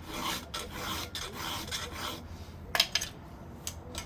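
Hand file rasping across the cutter teeth of a chainsaw chain in repeated strokes, with a short pause about halfway and one sharp metallic click shortly after, the loudest sound.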